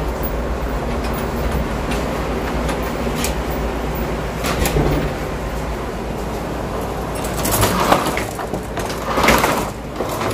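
Feed-mill corn-cracking machine running with a steady mechanical rumble as corn feeds through it, with a few clicks and two louder noises, each about half a second, near the end.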